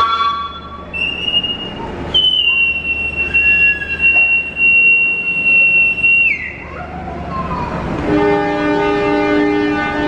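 A station official's whistle blown in one long steady blast of about four seconds, dropping off at the end: the signal for the train to depart. About two seconds later the locomotive's horn answers with a long held note.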